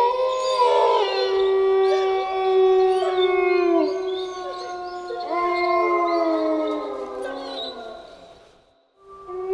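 Several wolves howling together in overlapping long, held howls at different pitches, some sliding down and others rising. The chorus fades out near the end, and a new howl starts just after.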